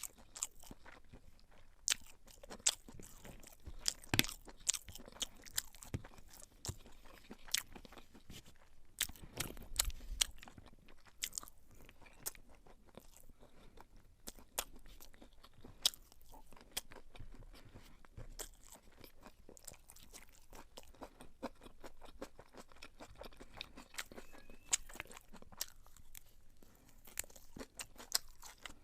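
Close-up eating sounds: a person chewing mouthfuls of beef pilau, with irregular sharp clicks and smacks throughout.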